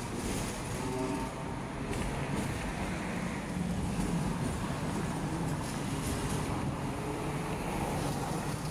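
A Hong Kong double-decker tram running along the street, heard from on board: a steady low rumble of the tram in motion, with street traffic around it.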